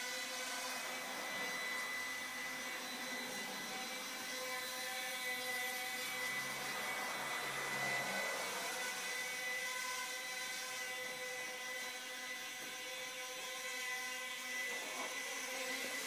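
Walkera QR Ladybird micro quadcopter's four small motors and propellers whining steadily in flight, a high-pitched buzz whose pitch shifts a little around the middle as it manoeuvres.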